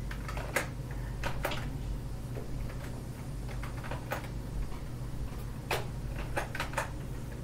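Scattered computer mouse and keyboard clicks, about eight short sharp ones, over a steady low electrical hum.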